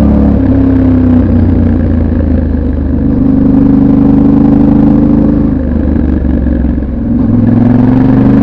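Yamaha Ténéré 700 World Raid's 689 cc parallel-twin engine with its stock exhaust, heard on board while riding. The engine note eases off twice and then rises near the end as the bike accelerates.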